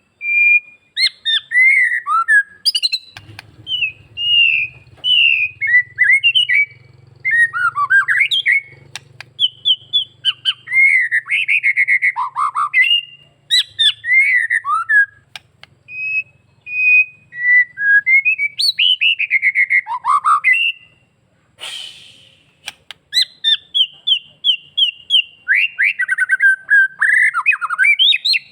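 White-rumped shama singing continuously: a long, varied run of loud whistled phrases, quick trills and chattering notes, the full-repertoire 'gacor full isian' song packed with mimicked phrases, with one short harsh rasp a little past the middle.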